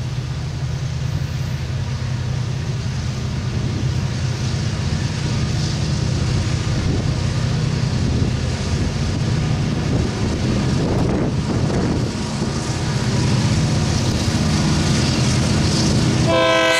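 Approaching freight train's diesel locomotives, led by an EMD SD40-2, working hard under a heavy load: a steady low engine drone that slowly grows louder. Near the end the locomotive horn starts to sound.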